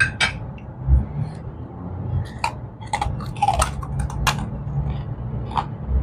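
Eating at a table: scattered clinks of a spoon and fork against a china plate, mixed with the crunching of krupuk crackers being bitten and chewed.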